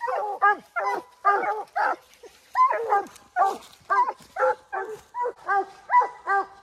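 Coonhound barking at the base of a tree in a fast, steady run of short chop barks, about three a second: the dog has a raccoon treed.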